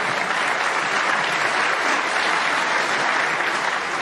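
Audience applauding a shot: dense, steady clapping from a large crowd.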